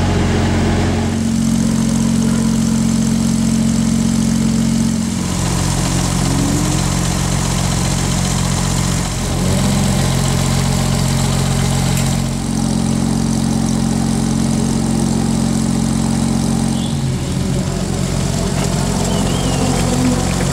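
Car engine idling steadily close by, its low note shifting slightly a few times.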